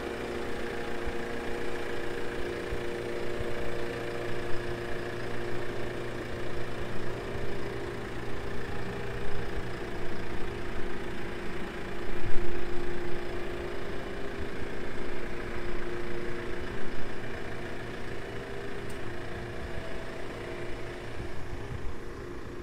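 Diesel engine of a JCB 536-70 Agri Loadall telehandler idling steadily, with a loudness peak about twelve seconds in.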